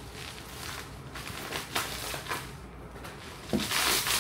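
Bubble wrap rustling and crinkling as it is handled and pulled off a box, louder near the end.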